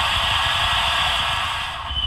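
Sound decoder of a PIKO H0 model ÖBB Rh 1041 electric locomotive playing its sanding sound, a steady compressed-air hiss over a low rumble. It starts fading away about a second and a half in.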